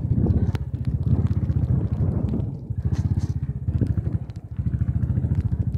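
Royal Enfield Bullet 500's single-cylinder engine running with a rapid, even exhaust beat while riding over a rough, muddy track. The engine note dips briefly twice, at about two and a half and four and a half seconds in, as the throttle eases off.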